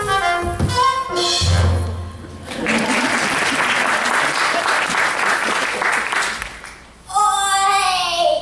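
Orchestral music with brass ends on a low final hit about a second and a half in. Audience applause follows for about four seconds. A child's voice begins near the end.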